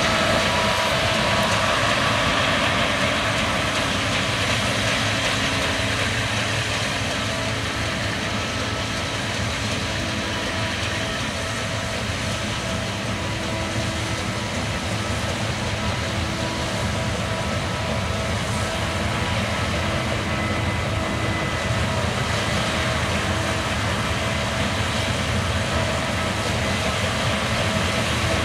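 Case combine harvester running steadily while harvesting barley: an even, continuous machine noise with a few faint held whining tones over it.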